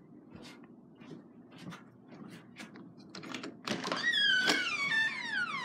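Door being opened: a few light clicks and knocks, then the hinges squeak in a long falling glide.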